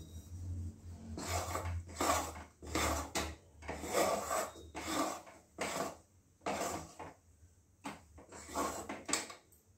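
Steel spatula scraping and stirring a thick peanut-powder and sugar-syrup mixture around a pan as it is cooked down until thick, in repeated strokes about once a second.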